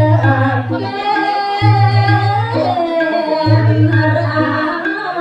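A woman sings a Balinese geguritan (sung verse) into a microphone in long, held, winding lines, over a low pulsing beat that comes in stretches of about a second and a half and drops out between them.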